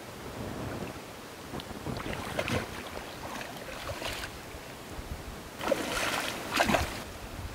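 A hooked fish thrashing and splashing at the water's surface as it is played on a rod, in several rough bursts, the loudest a little before the end.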